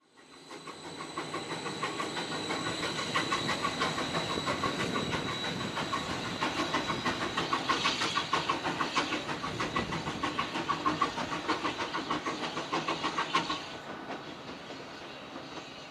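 A passing train's wheels clicking rapidly and steadily over rail joints. It fades in at the start, a faint high whine sits over it in the first half, and the clicking drops away about 13 seconds in.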